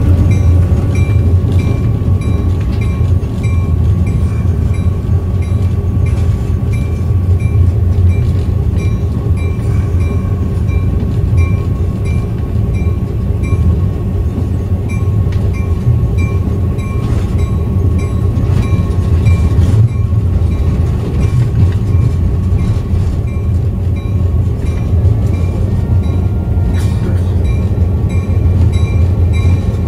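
Diesel locomotive engine running steadily as the locomotive moves along the track, heard up close from on board near the exhaust stack. A regular high-pitched ping repeats throughout, with scattered clicks over the engine.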